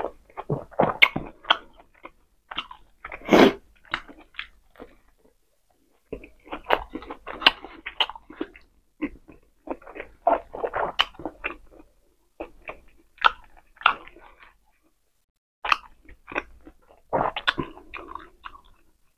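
Close-miked chewing and lip-smacking of a person eating pork steak and sausage, in irregular clusters of sharp clicks with brief pauses.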